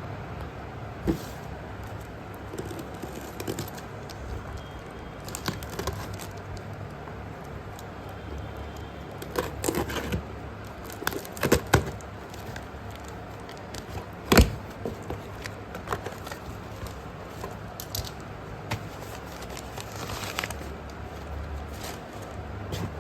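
Unboxing a parcel of slate pencils: scattered crackles and sharp clicks of handling, irregular and without rhythm, the loudest a single snap about two-thirds of the way through, over a steady low hum.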